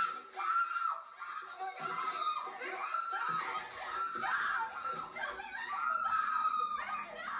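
Teenage girls giggling and squealing with laughter in a film's soundtrack, with high-pitched voices held in long drawn-out shrieks.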